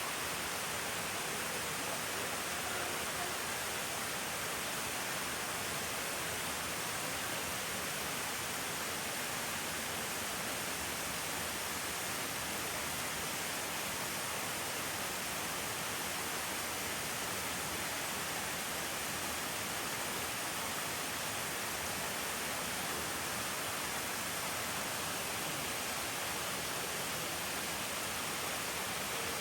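Steady, unbroken rushing of flowing water, as from a waterfall or spring stream, an even hiss with no other sounds in it.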